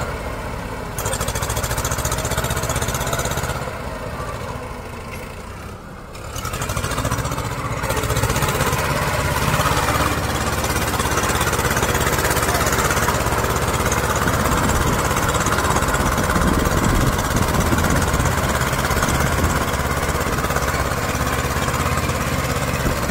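Diesel tractor engines running hard under load as a Mahindra 255 DI pulls a stuck Sonalika tractor and its overloaded trolley through mud. The sound eases for a few seconds near the start, then comes back louder and holds steady.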